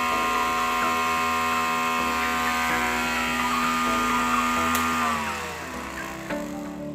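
Homemade grinder's 775 DC motor running at full speed with a steady high whine, then a click a little under five seconds in, and the whine falls in pitch as the motor spins down.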